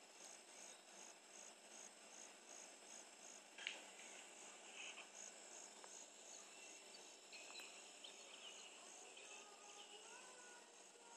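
Faint insect chirping: a high pulse repeating evenly about two and a half times a second. A few short whistled tones come in near the end.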